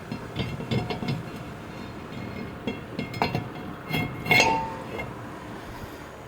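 Metal parts or tools clinking and knocking together in a string of light strikes. Several strikes ring briefly, and the loudest comes about four and a half seconds in.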